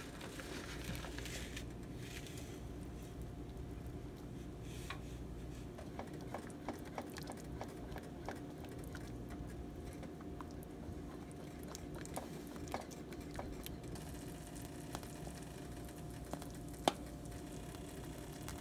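A whisk and spoon stirring a pot of thickening cream-and-parmesan Alfredo sauce: soft scattered taps and scrapes against the pot, with one sharper click near the end, over a low steady hum.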